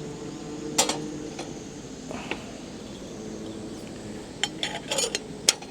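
Camp cookware and utensils clinking while coffee is made: one sharp clink about a second in, then a quick run of clinks and taps near the end.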